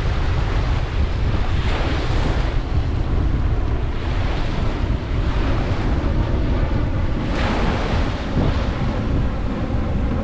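Ocean surf breaking and washing up a beach, with a steady low rumble of wind on the microphone. The surf swells louder about two seconds in and again about seven seconds in.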